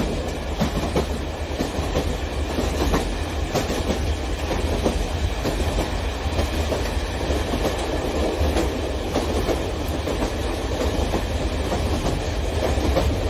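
Model train running past on elevated track, its wheels clicking irregularly over the rail joints above a steady low rumble.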